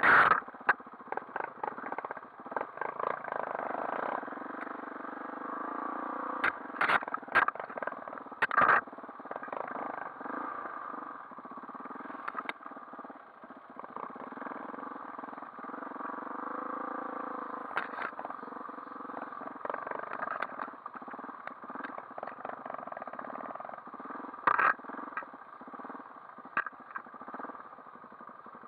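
Dirt bike engine running at low, shifting revs on a slow, rough trail ride, with sharp knocks and clatter scattered through, the loudest about seven, nine and twenty-five seconds in.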